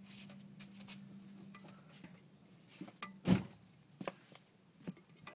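Audi S4's 2.7-litre twin-turbo V6 idling with a steady low hum, softer after about two seconds. Several sharp knocks and clicks from handling near the microphone come through, the loudest about three seconds in and another near the end.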